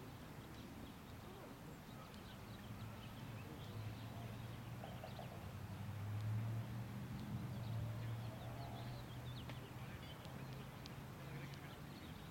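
A low steady hum that swells about halfway through and then eases off, with faint distant voices.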